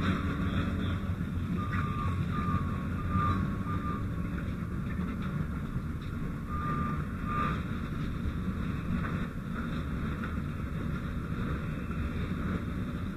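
Steady low rumbling noise on the fire ground, from hose water flow and working equipment, with a few short high-pitched beeps about a second in, around two seconds and again near the middle.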